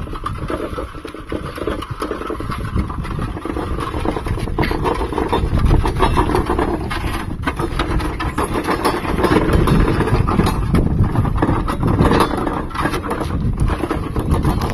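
Ox-drawn bullock cart moving along a dirt farm track: hooves clopping and the cart rattling and knocking continuously.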